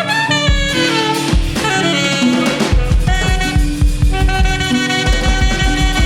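Free jazz improvisation on alto saxophone and drum kit: the saxophone plays held notes that bend in pitch, and the drums turn to rapid low hits about three seconds in.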